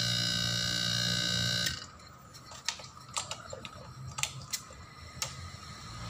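A steady electric motor hum with a high whine, cutting off abruptly a little under two seconds in; a few light clicks and taps follow.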